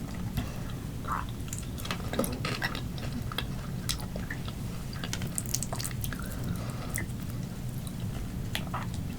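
Close-miked chewing of grilled octopus: irregular wet mouth clicks and smacks over a low steady hum.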